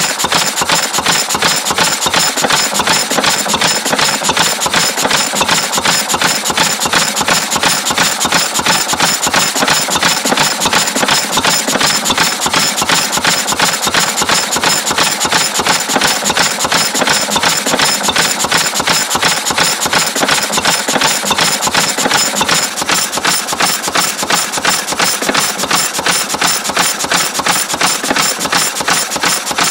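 Lister B single-cylinder stationary engine running steadily, with a fast, even mechanical clatter from its valve gear that does not change.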